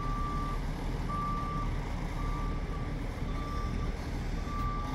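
Forklift's reversing alarm beeping: one steady high beep about every second, each about half a second long, over a low steady rumble.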